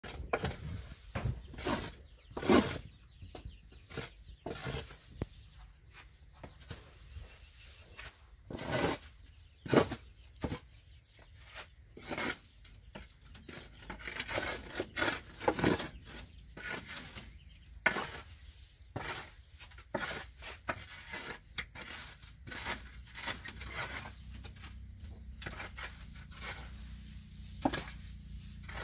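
Dry rice-husk bedding rustling and scraping as it is scooped and pushed aside by hand, in irregular scuffs with a few louder scrapes.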